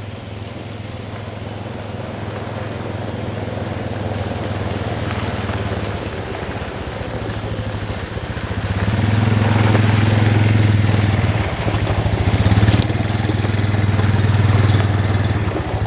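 An engine running steadily at idle, a low pulsing hum that gets louder about nine seconds in.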